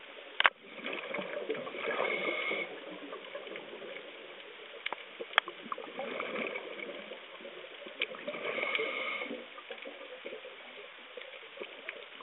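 Underwater sound: two bursts of bubbling about six seconds apart, over a steady hiss, with a few sharp clicks in between.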